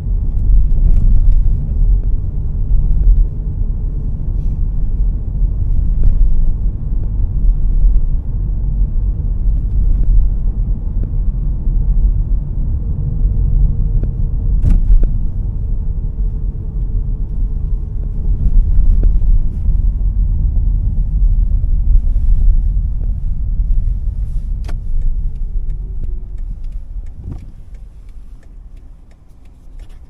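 Steady low road and tyre rumble inside the cabin of a Toyota Alphard Hybrid minivan on the move, with no squeak or rattle from the door: the door noise has been cured with silicone spray. The rumble fades over the last few seconds.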